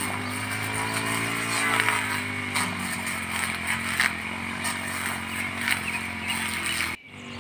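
A small engine running steadily, unseen in the picture. It drops sharply in level near the end.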